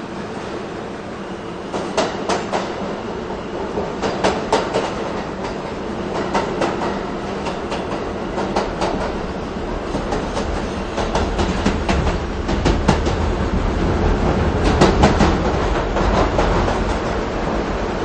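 New York City subway train running, its wheels clacking over rail joints in quick clusters of clicks from about two seconds in, over a steady rumble that swells louder in the second half.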